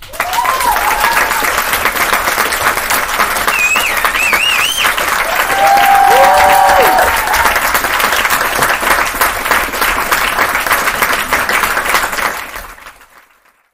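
Crowd applauding, with a few wavering whistles or whoops about four to seven seconds in. It starts suddenly and fades out near the end.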